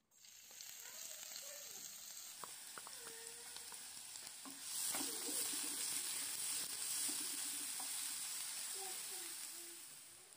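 Diced red onion sizzling in hot vegetable oil in a frying pan, stirred with a plastic spoon with a few light scrapes and clicks. The sizzle grows louder about halfway through as the onion is spread and stirred.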